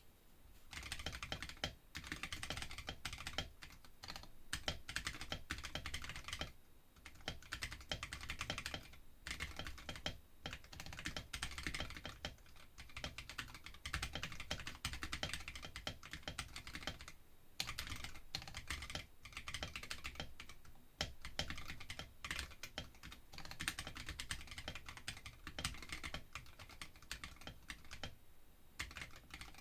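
Typing on a Womier K66 mechanical keyboard fitted with Akko CS Rose Red linear switches: continuous runs of keystroke clacks lasting several seconds, broken by a few short pauses.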